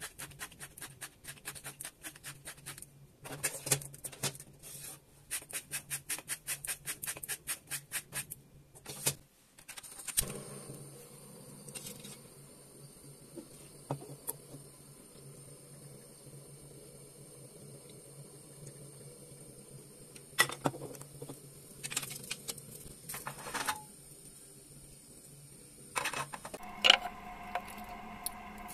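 Salt and pepper grinders being twisted over a bowl: a rapid run of crunching clicks, several a second, for about the first nine seconds. After that, only a few scattered light knocks and clicks from a plastic bottle being handled at a steel sink, over a faint steady hiss.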